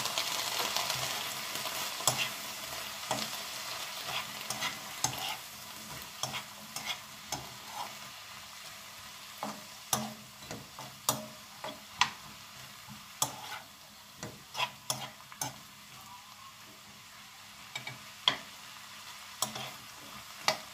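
Garlic scapes and onion stir-frying in a frying pan: a sizzle that fades over the first several seconds, with frequent sharp clicks and scrapes of a utensil stirring against the pan.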